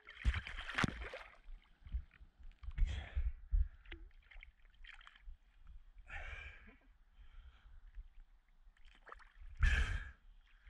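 Sea water splashing and sloshing at the surface against a half-submerged camera as a speared fish is handled, in short bursts about a second in, around three seconds, around six seconds and again near the end, over a low watery rumble.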